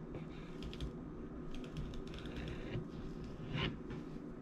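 Chef's knife cutting a raw trout fillet on a plastic cutting board: faint clusters of light clicks and taps, with one sharper tick near the end.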